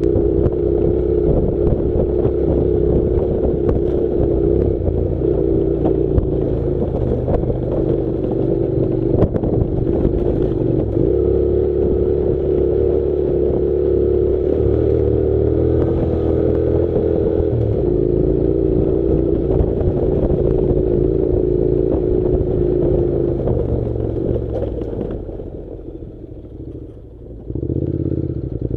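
Honda NC700's parallel-twin motorcycle engine running steadily under load on a dirt road, with occasional knocks and clatter. The engine note eases off about 25 s in and picks up again near the end.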